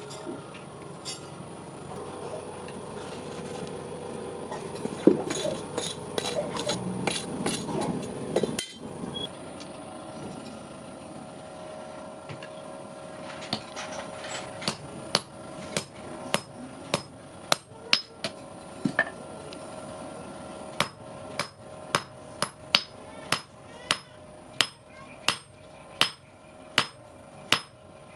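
Hand hammer striking metal on an anvil while forging a hook. A flurry of quick, irregular blows comes in the first third and then stops for several seconds. Evenly spaced sharp blows follow, about one and a half a second.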